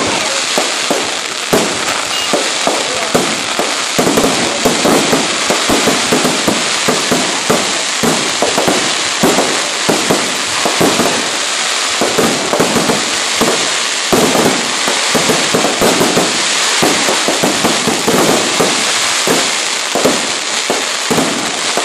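Fireworks going off in a dense, continuous barrage of rapid cracks and pops, with no pause.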